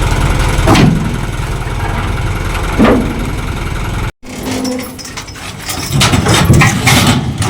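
Engine running steadily, with two loud metallic knocks about two seconds apart. It breaks off suddenly about four seconds in, followed by quieter, irregular knocking and clatter.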